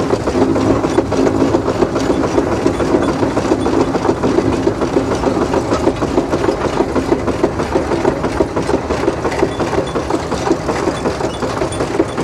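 Steam traction engine running as it is driven, with a steady, rapid mechanical clatter from its gearing and moving works.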